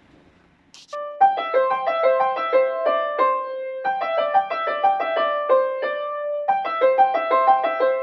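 Background music: a light keyboard melody of quick plucked-sounding notes, starting about a second in.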